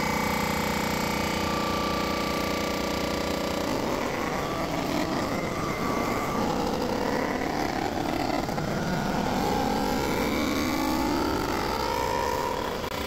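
Block surfacing machine running with a steady motor hum. About four seconds in, the sound turns rougher and uneven as the cutter works across the deck of a Toyota 3VZ engine block.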